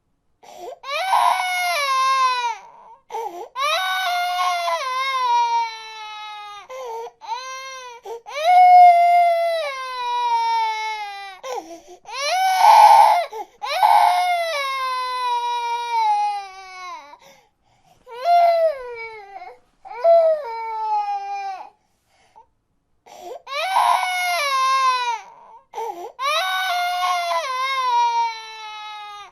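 A baby crying in a long string of high-pitched wails, each one falling in pitch, with brief breaths between them and a pause of a couple of seconds about two-thirds of the way through.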